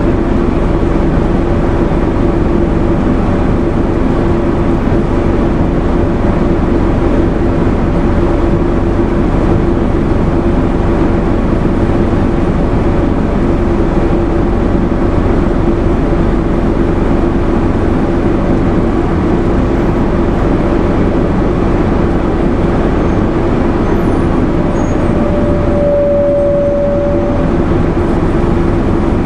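Inside a Nova Bus RTS transit bus, its Detroit Diesel Series 50 inline-four diesel drones at an even pitch as the bus runs along. Near the end a brief, steady high tone sounds for about two seconds over the drone.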